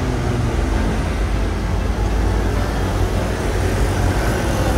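Road traffic at a city intersection: motor scooters, cars and a city bus passing, a steady engine rumble with no breaks.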